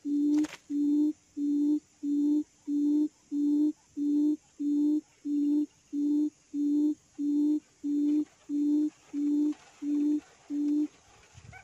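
Recorded quail lure call played through a speaker: a low hooting note repeated evenly about twice a second, stopping shortly before the end.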